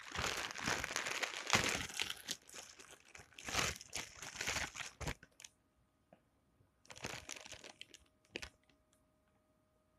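Plastic packaging bag crinkling and rustling as a plush toy is pulled out of it, in uneven bursts for about five seconds, then once more briefly about seven seconds in.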